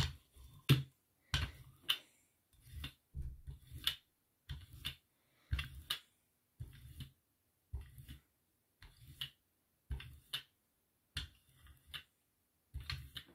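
A 4-inch rubber brayer is being rolled back and forth over a thin layer of wet acrylic paint on a gel printing plate. Each stroke makes a short, tacky, crackling sound, almost two strokes a second.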